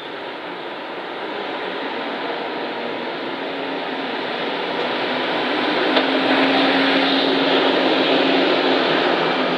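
Alexander Dennis Enviro200 single-deck bus driving up and past: engine and tyre noise growing steadily louder, with a steady low engine hum at its loudest, about two-thirds of the way in.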